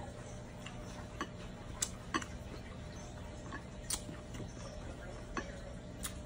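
Scattered small sharp clicks and smacks, seven or so at uneven spacing, from eating boiled shrimp and dipping it in a bowl of sauce, over a steady low hum.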